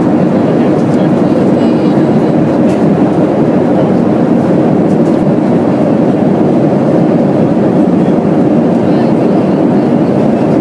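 Steady cabin noise of a Boeing 737-300 in flight at altitude: engine and airflow noise heard from inside the passenger cabin, an even, unbroken rush.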